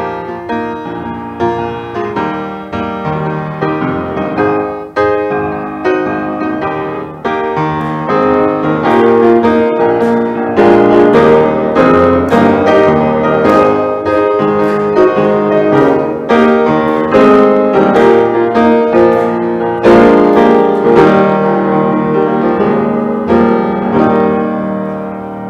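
Piano music: a steady run of notes, softer at first and fuller and louder from about eight seconds in.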